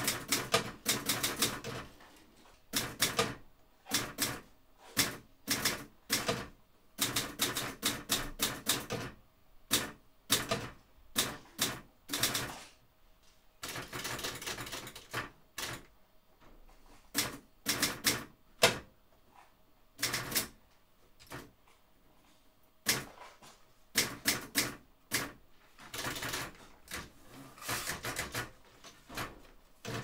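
Typing on a keyboard: runs of quick key clicks lasting a second or two, broken by short pauses.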